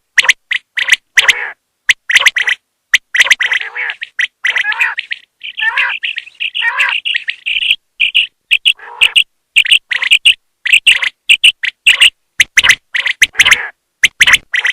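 Female common quail calling: a fast run of short, sharp chirps with a few longer, harsher calls among them, each breaking off abruptly into silence, the kind of call played to draw quail in for hunting.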